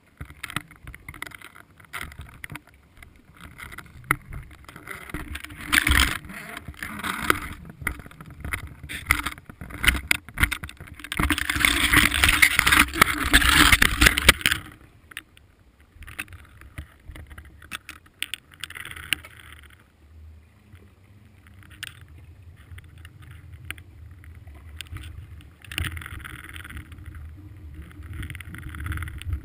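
Underwater camera rig being jostled in the water: scattered clicks and knocks against the housing with a rush of water noise. The noise is loudest for about three seconds midway, while the camera spins.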